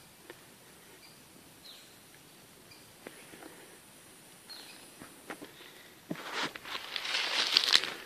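Footsteps crunching through dry leaf litter, starting about six seconds in and growing loud and crackly. Before them, only a few faint, short, high falling chirps.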